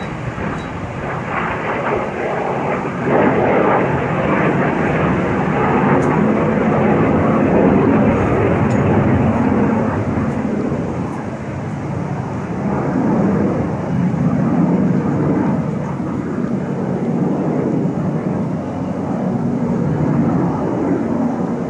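Fixed-wing aircraft flying overhead in a flyby: loud engine noise that swells about three seconds in, eases off around the middle, then swells again before fading near the end.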